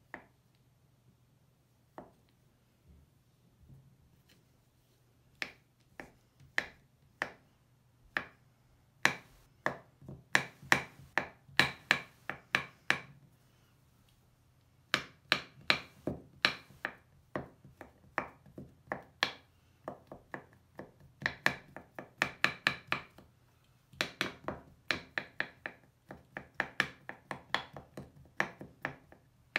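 Kitchen knife cutting a crumbly Lush bubble bar on a wooden cutting board: a few separate slicing clicks at first, then quick runs of chopping, about three or four crisp knocks a second as the blade goes through the bar onto the board, with short pauses between runs.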